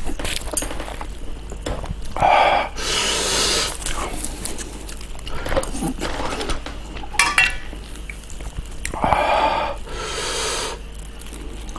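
Close-miked eating sounds from a person eating kimchi stew: small mouth clicks of chewing, with three long, loud, noisy breaths or slurps, one about two seconds in, one near the middle and one toward the end.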